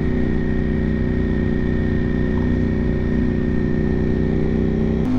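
Ducati Streetfighter V4's V4 engine running steadily at low, constant revs while cruising, kept gentle to stay quiet around horses. Near the end the engine note changes abruptly.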